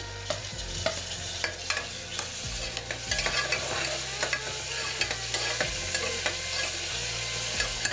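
A metal spoon scraping and clinking against the inside of a pressure cooker while chopped tomatoes are stirred into onions frying in oil, over a steady sizzle. There are many short clinks throughout.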